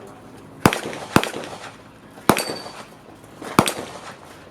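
Handgun shots at a practical-shooting match: four sharp cracks at uneven spacing, each with a short echo.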